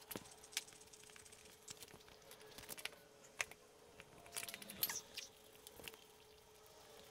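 Faint scattered clicks and light metal knocks of steering-rack parts and hand tools being handled on a concrete floor, a few louder ones about four and a half to five seconds in, over a faint steady hum.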